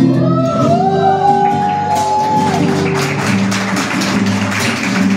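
Live song with a man singing and playing guitar: a long sung note that glides up and is held for about two and a half seconds, then rhythmic guitar strumming over sustained low notes.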